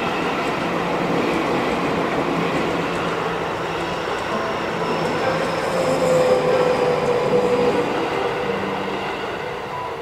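Seibu Shinjuku Line electric commuter trains running over a level crossing: a steady rumble of wheels on rail, with a whining tone that rises and holds from about halfway.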